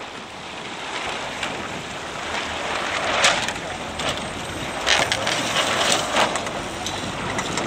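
Water splashing and slapping against a small boat's hull in a choppy breeze, with wind noise on the microphone and a few sharper slaps about three, five and six seconds in.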